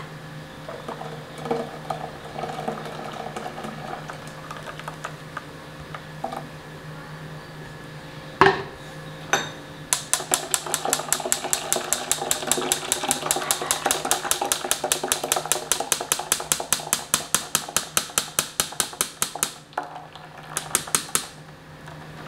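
Metal spoon scraping and tapping against a wire-mesh strainer in quick, regular strokes, several a second, working blended blueberry milkshake through into a steel bowl. A single sharp knock comes a little before the strokes begin.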